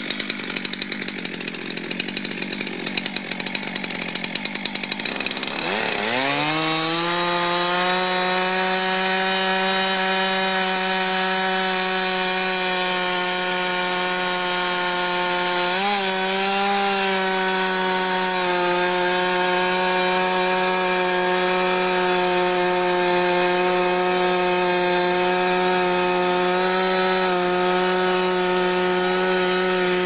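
Stihl MS 441 two-stroke chainsaw on an Alaskan chainsaw mill, idling unevenly, then revved hard about six seconds in and held at full throttle as it rip-cuts lengthwise along a log. About halfway through, the engine note sags briefly under load and recovers.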